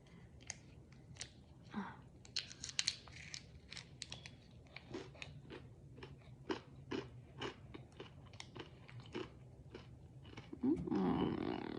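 Close-up crunching and chewing of Reese's peanut butter pretzel snacks, with irregular sharp crackles as each bite breaks. Near the end there is a louder muffled sound of about a second.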